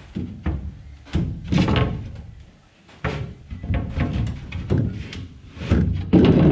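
Plywood floor panel being handled in the boat's metal floor frame: a run of wooden knocks and scrapes as the sheet is lifted and set back down, the loudest near the end.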